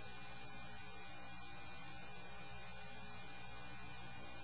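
Steady electrical hum and hiss with no other sound: the background noise of an old film soundtrack.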